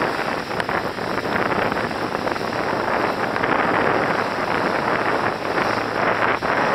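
Wind buffeting the microphone over the steady rush and splash of water past a moving boat's hull.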